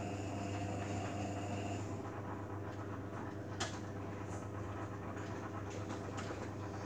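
Beko Eco Care WMA 1510 washing machine running on its wash cycle: a steady motor hum with a higher whine that stops about two seconds in, and one sharp click a little past halfway.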